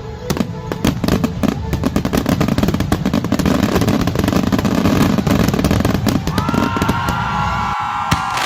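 Fireworks going off: dense, rapid crackling pops over a low rumble. About six seconds in, several whistling fireworks start together, their tones sliding slightly down.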